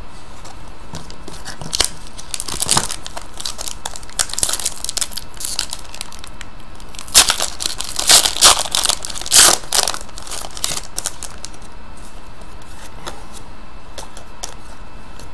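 A foil trading-card pack wrapper being torn open and crinkled by hand, in irregular crackly bursts, loudest a little past the middle, then settling to a faint background as the cards come out.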